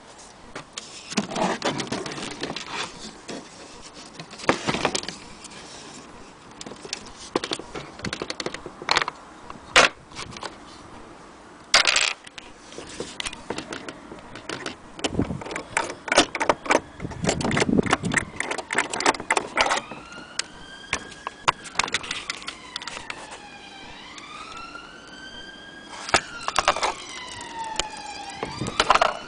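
Irregular clicks, knocks and light metallic rattling, as from an old wall clock and its parts being handled. About two-thirds of the way through, a siren starts wailing in the background, rising and falling slowly.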